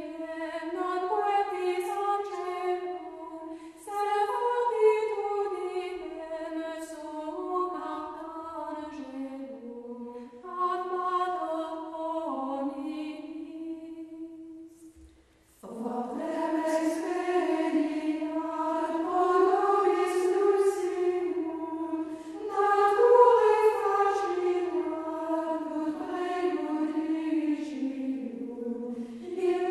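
Choir singing slow, sustained notes, breaking off in a brief silence about halfway through and then resuming.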